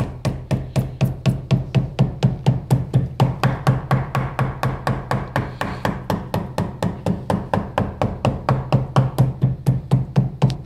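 Small hammer tapping a glued toe guard onto the toe of a wooden cricket bat in quick, even strokes, about five a second, working round to bed the guard into the glue.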